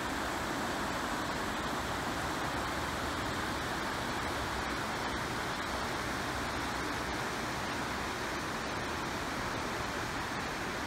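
Steady rushing of a shallow river running over rocky riffles.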